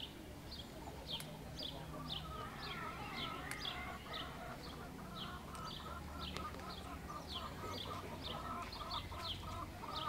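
Small songbird outdoors repeating a short, high, falling chirp about twice a second. From about two seconds in, a lower, quick chattering call joins it.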